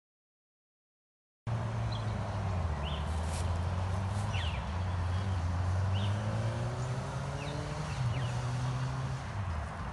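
Silent for about a second and a half, then a vehicle engine runs with a low hum that slowly rises and falls in pitch over a steady noise bed. Short bird chirps come through several times above it.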